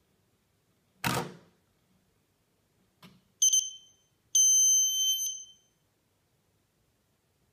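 A sharp pop about a second in. Then the Yongnuo YN565EX speedlite's electronic beeper gives a short high beep and, a moment later, a longer beep of about a second.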